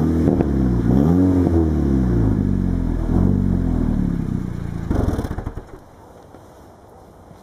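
Seat Leon Cupra's tuned 2.0 turbo four-cylinder, with a stainless downpipe, 100-cell sports catalyst and straight-through centre section, revved in several rising and falling blips through its exhaust. About five seconds in it crackles and pops as the revs fall, then the engine sound stops.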